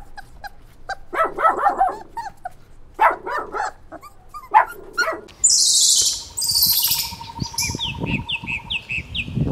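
A dog barking in short bursts for about the first five seconds. Then birds chirping, with a row of short falling chirps near the end.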